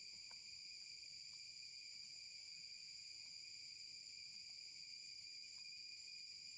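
A faint, steady high-pitched insect chorus drones without a break, with a few faint ticks about a third of a second in and about a second later.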